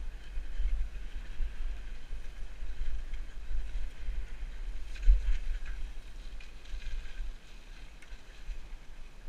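Wind rumbling on the microphone of a camera mounted on a downhill mountain bike riding a dirt trail, with the rattle and hiss of tyres and bike over rough ground. A hard thump stands out about five seconds in, and the noise gets quieter near the end.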